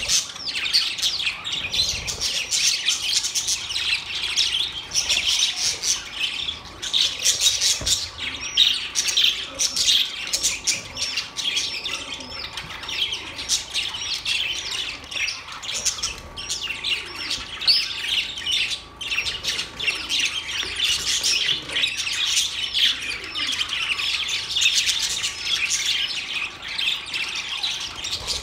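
Many small birds chirping at once, a dense, unbroken chatter of short, high-pitched chirps and tweets.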